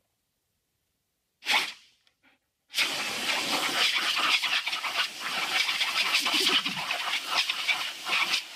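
A short hissing blast from a hand-held nozzle wand about one and a half seconds in, then a steady hissing jet from it, held close to a dog's mouth as the dog bites at the stream.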